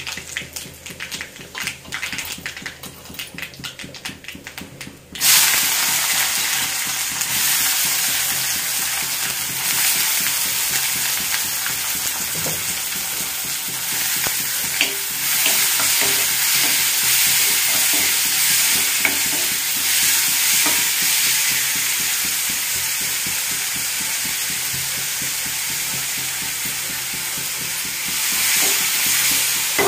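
Hot oil in a black kadai crackling with scattered pops around dried red chillies and seeds. About five seconds in, a loud, steady sizzle starts as chopped onions and curry leaves go into the oil, with a wooden spatula stirring them through.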